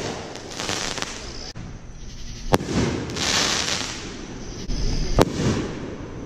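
Consumer aerial fireworks bursting: two sharp bangs about two and a half seconds apart, the first followed by a spell of loud hiss.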